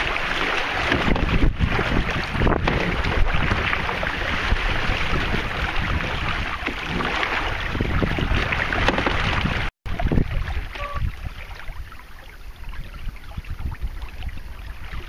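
Wind buffeting the microphone over water rushing along the hull of a 16-foot plastic canoe under sail. The sound cuts out abruptly about ten seconds in and comes back quieter.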